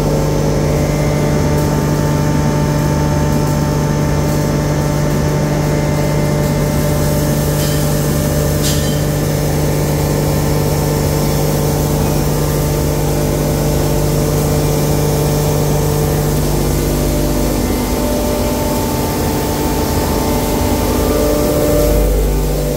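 Stainless steel pulverizer (spice hammer mill) running with a steady motor hum and whine while whole seeds are fed into its hopper to be ground. The low hum changes about three-quarters of the way through, and a short low rumble swells near the end.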